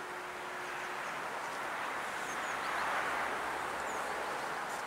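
Steady rushing outdoor noise of wind in the trees and a distant approaching train, swelling about three seconds in. A few faint high bird chirps sound over it.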